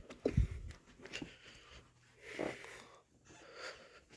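Soft, wheezy breathing from a person: a breathy sound about two seconds in and a weaker one near the end.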